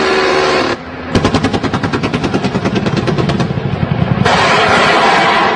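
A steady engine drone, then from about a second in a burst of rapid automatic gunfire, evenly spaced shots for about three seconds, giving way near the end to a loud, steady rushing noise.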